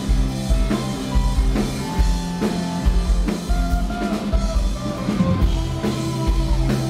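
A rock band playing live: drum kit with a steady kick-drum beat, electric bass and electric guitars.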